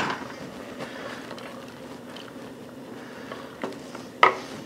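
A sharp knock as a ceramic pitcher is set down on the table, then a wooden spoon stirring risotto in a stainless steel saucepan: light scrapes and taps, with a sharper knock of the spoon against the pot about four seconds in. A faint steady hum runs underneath.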